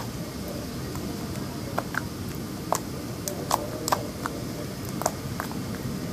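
Freshly made homemade slime being handled, giving small sticky clicks and pops at irregular intervals over a steady background hum.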